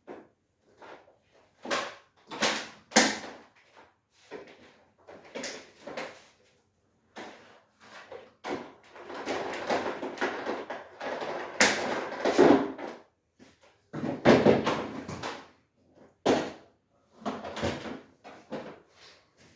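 Irregular knocks and clatter with short stretches of rustling noise, like things being handled, moved and set down, with quiet gaps in between.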